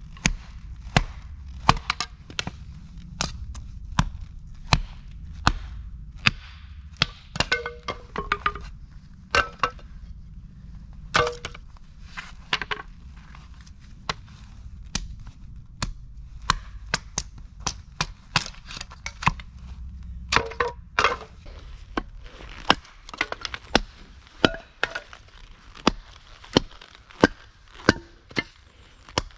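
Hatchet splitting ash deadwood into kindling on a chopping block: a long run of sharp chops and cracks of splitting wood, roughly one to two strikes a second.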